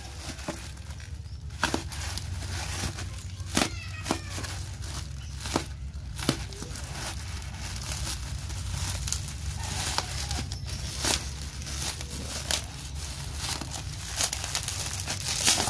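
Black plastic courier mailer being slit and torn open by hand, crinkling and rustling with frequent sharp crackles and rips, over a steady low hum.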